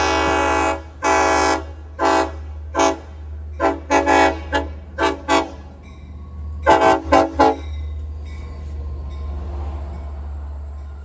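Train horn: a long blast that ends just under a second in, then a quick, irregular string of about a dozen short toots. A low, steady rumble from the train runs underneath and continues after the horn stops.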